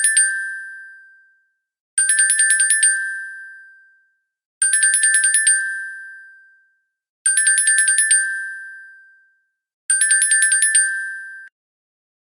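A bright bell-like ringing sound effect: rapid runs of about nine quick metallic strikes, each run ringing out and fading. The runs repeat about every two and a half seconds, and the last is cut off abruptly.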